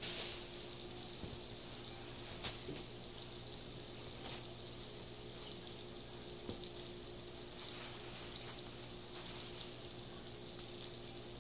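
Thin plastic shopping bag crinkling in short bursts as a cat paws and bites at it, over a steady low hum.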